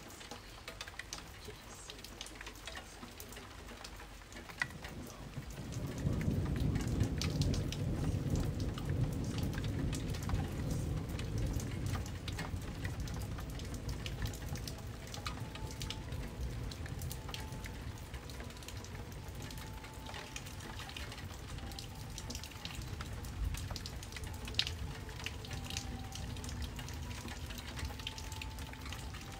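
Rain with scattered drop clicks throughout. About six seconds in, a low rumble of thunder builds, rolls on, and slowly fades over the following twenty seconds.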